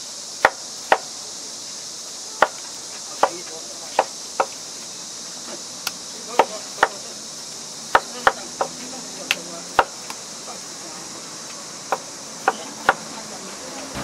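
A knife chopping fresh fruit on a cutting board: sharp knocks at irregular spacing, often in quick pairs, about seventeen in all. A steady high-pitched hiss runs under them.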